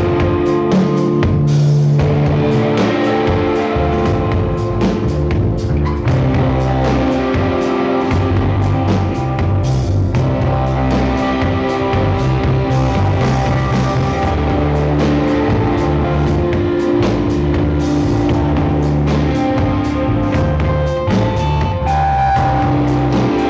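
Live rock band playing: electric bass guitar and drum kit under long held trumpet notes, at a steady loud level.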